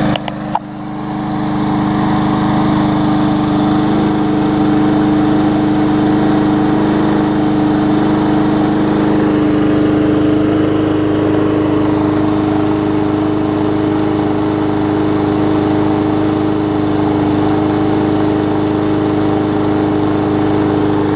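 Briggs & Stratton Classic push-mower engine, a small single-cylinder side-valve, running steadily at speed with an even tone. It runs smoothly and does not sound like it is struggling, with Seafoam added to the fuel to burn out deposits.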